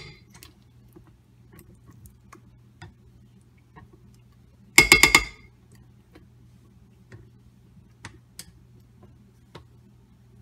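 KitchenAid stand mixer running with a low steady hum as its flat beater churns sweet potato batter in a glass bowl, with faint scattered clicks. About five seconds in, a brief rapid run of ringing clinks as the beater knocks against the glass bowl.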